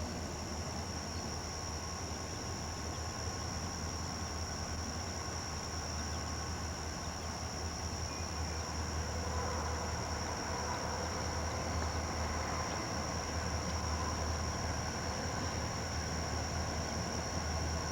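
Crickets trilling in a steady high drone over a steady low rumble, which grows a little louder about halfway through.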